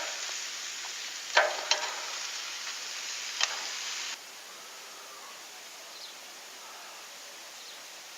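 Chicken pieces sizzling on a hot grill as they are turned, with a few sharp clicks of the turning utensil against the grill. The sizzle drops suddenly to a quieter, steady hiss about four seconds in.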